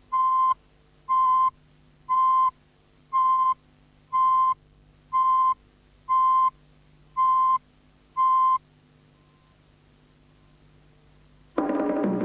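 Countdown leader beeps: nine short, identical beeps of one steady pitch, one a second, then a pause. Music with drums comes in near the end.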